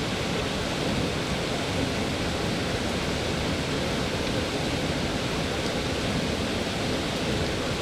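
Steady, unbroken rushing of water falling over a waterfall.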